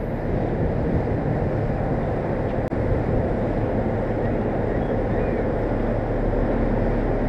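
Steady low rumble of a large ocean-going bulk freighter's engine as the ship passes close by.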